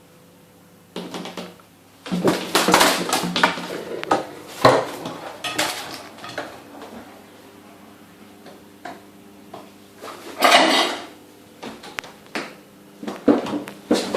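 Dishes, pans and cutlery clattering and rattling in a kitchen in repeated bursts, with a loud burst about ten seconds in, while a seagull is loose among them.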